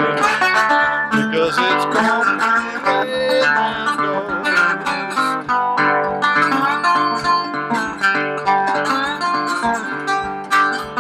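Solo metal-bodied resonator guitar fingerpicked in a Delta blues style, a steady run of plucked notes with a few sliding in pitch about three seconds in.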